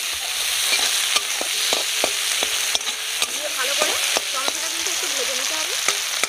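Chopped tomatoes and onions sizzling in mustard oil in an aluminium kadai, a steady frying hiss. A metal spatula stirs them, scraping and knocking against the pan with frequent sharp clicks.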